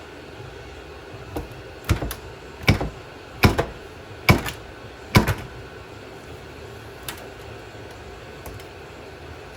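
A series of about six sharp knocks less than a second apart, the loudest near the middle, then two faint taps, typical of a hammer striking a metal part while an ATV gear carrier is taken apart.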